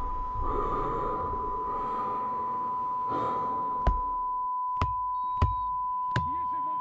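A steady high-pitched tone rings without a break over muffled low noise. The noise fades out a little past halfway, and four sharp knocks follow in the last three seconds.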